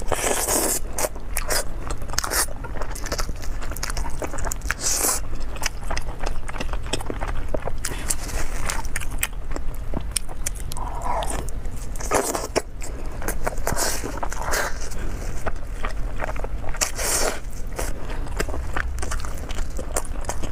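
A person biting and chewing a sauce-glazed chicken drumstick right at a clip-on microphone, with many short, sharp mouth clicks and chewing noises throughout.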